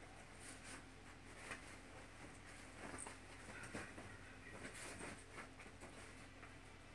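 Faint, irregular scratching and rustling on bedding and a pillow as a small dog paws and plays at a cat, with a few soft clicks.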